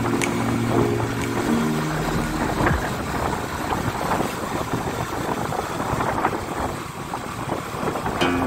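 Background music for the first few seconds, breaking off. Then a steady rush of wind on the microphone of a moving motorcycle.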